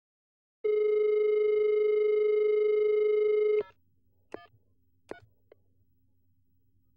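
Telephone dial tone, a steady hum held for about three seconds that cuts off with a click. Then come two short beeps and a faint click as a number is dialled.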